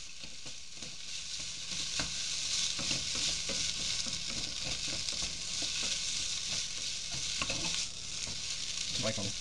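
Fried cauliflower, onion and capsicum in sauce sizzling steadily in a nonstick wok, with a wooden spatula scraping and knocking against the pan as it is stir-fried; the pan is tossed near the end.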